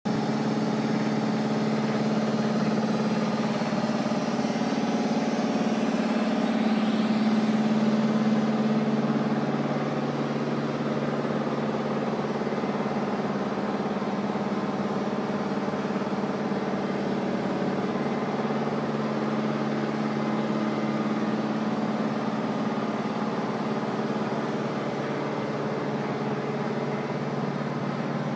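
Weigang ZBS 450 flexographic label printing press running, a steady mechanical hum with a few held tones, a little louder for the first several seconds.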